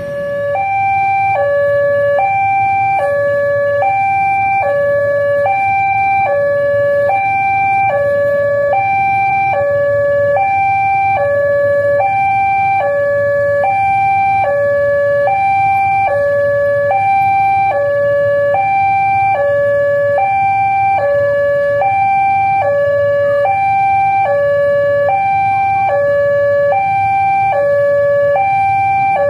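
Railway level-crossing warning alarm sounding a steady hi-lo two-tone, a high note and a low note in turn about once a second, warning that a train is approaching. A low, steady rumble of traffic sits underneath.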